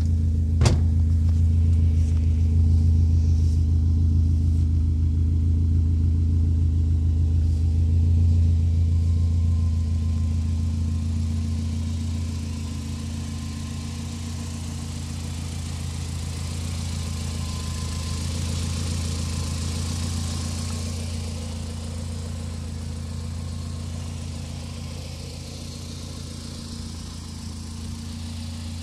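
Honda Civic EM1's four-cylinder engine idling steadily, with a single sharp click less than a second in.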